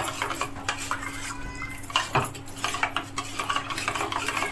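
Metal spoon stirring custard powder into milk in a stainless-steel bowl, rapidly scraping and clinking against the bowl's sides and bottom.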